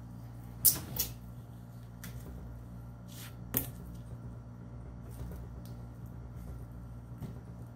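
A few sharp handling clicks and knocks as a gloved hand takes hold of a large glass flask: two close together about a second in, and two more around three and a half seconds in. A steady low hum runs underneath.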